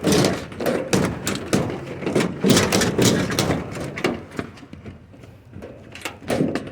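Fish-tank top being shaken out and handled, giving a run of irregular clattering knocks that are busy for the first few seconds, then sparser and quieter.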